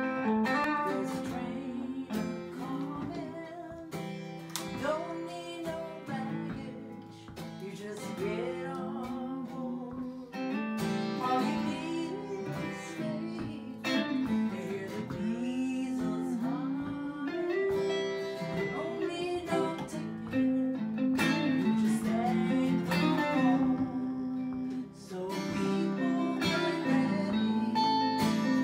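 Acoustic guitar strumming chords together with an electric guitar playing lead lines with many bent, sliding notes, at a slow, easy tempo.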